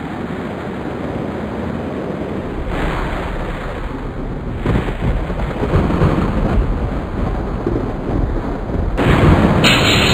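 Storm wind and rain, a loud rushing noise that grows louder and changes abruptly several times.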